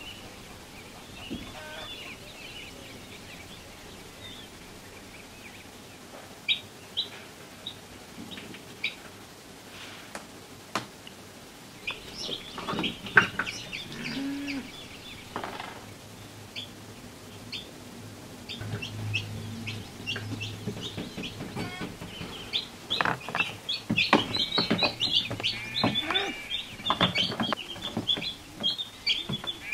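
Newly hatching chicks peeping: short, high chirps, scattered at first and coming thick and fast in the second half, with a few sharp clicks in between.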